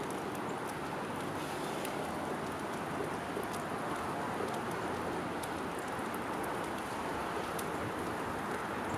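Steady outdoor background hiss with faint, irregular high ticks scattered throughout.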